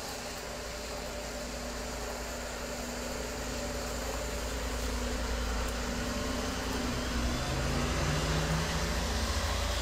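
Steady rush of wind and rain, with gusts buffeting the microphone, growing slightly louder. A vehicle engine hums underneath, dropping to a lower note about seven seconds in.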